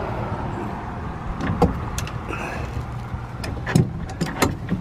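Slip-joint pliers clicking and scraping against a heat-softened plastic sewer pipe piece as it is worked out of its fitting: a handful of sharp clicks in the second half, over a steady low hum.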